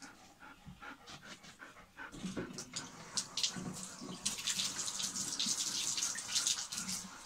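Water splashing and trickling in a bathtub as a wet dog's paws and tail are wrung out by hand, the dripping and sloshing growing denser about four seconds in.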